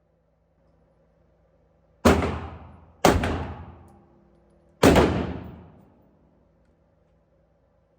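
Three loud gunshots, the first two about a second apart and the third about two seconds later, each followed by about a second of echo in an indoor shooting range.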